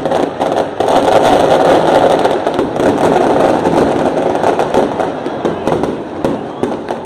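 Large crowd of football supporters in a packed stadium stand chanting and cheering, a loud, dense roar that swells about a second in.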